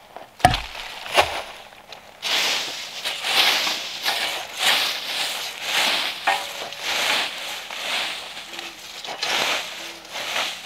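Two sharp knocks near the start, then crunching and rustling of dry leaves and twigs in swells about once a second.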